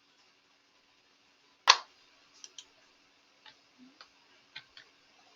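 Clicking at a computer during editing work: one sharp click about two seconds in, then half a dozen lighter, scattered clicks.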